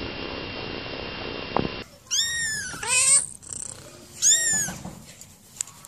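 A kitten purring, then after about two seconds a small kitten meowing loudly three times, in high calls that rise and fall in pitch.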